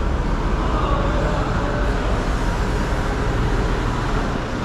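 A large forklift's engine running steadily as it drives up to the trailer, lifting a heavy stack of MDF boards: a continuous deep engine rumble.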